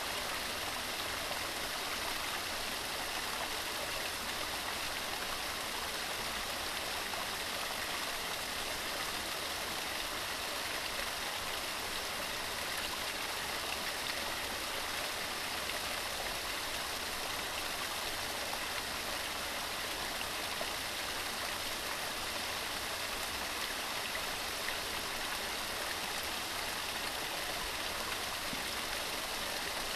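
Waterfall: water rushing and splashing in a steady, even hiss with no breaks or changes.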